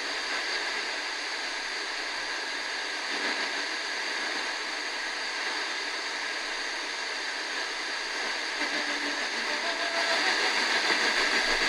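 Steady AM static hissing from the Eton FR-250's speaker while it is tuned across the daytime medium-wave band, with a very weak station barely showing through the noise.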